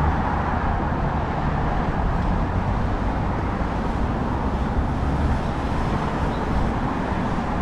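Steady road traffic noise: cars running along a wide multi-lane city road beside the sidewalk, a constant low rumble and tyre hiss with no single vehicle standing out.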